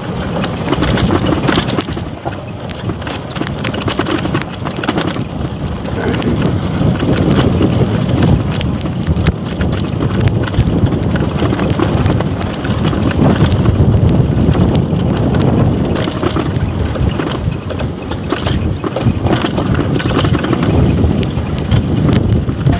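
Yamaha motorcycle engine running at low speed over a rough dirt track, with wind rushing over the microphone.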